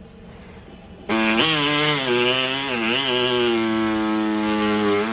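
A power tool starts about a second in and cuts through the door's interior plastic trim, running with a steady whine whose pitch dips briefly a few times as it bites into the plastic.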